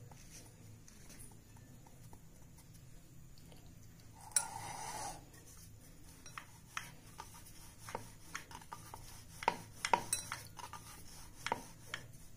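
Wooden rolling pin rolling out roti dough on a round wooden rolling board, with irregular light knocks and clicks of the pin on the board. A brief scraping noise comes about four seconds in.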